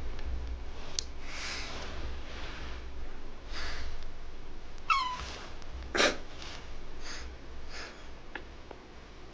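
A run of short sniffs and breaths at close range while a kitten noses and nibbles at a man's face. A brief high squeak comes about five seconds in.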